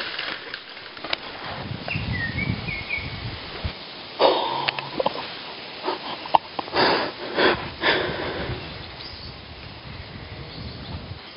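Several short, breathy sniffs in the middle, the last three about half a second apart, with a brief bird chirp about two seconds in.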